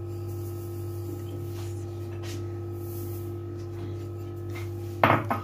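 A steady low electrical hum with faint soft rustling as icing sugar is poured from a small bowl onto a bowl of ground sellou mixture. A sudden loud sound comes near the end, just as a voice starts.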